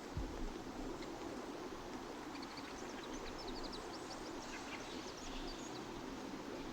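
Outdoor ambience of small birds chirping in quick high notes, bunched in the middle, over a steady low rumble, with one brief low thump near the start.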